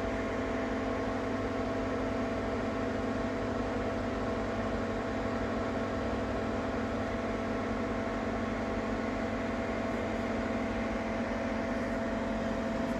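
Ninja Foodi 8-in-1 multicooker running with a steady mechanical hum and whir, several fixed tones over a whooshing haze, which is the kind of noise the owner finds unbearable, here with the appliance still cold.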